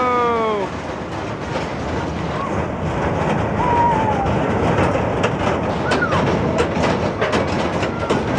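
Kiddie roller coaster cars running along a steel track, a steady rumble with rattling clatter that grows busier near the end. A drawn-out, falling "whoa!" fades out in the first second, and a few short shouts come through.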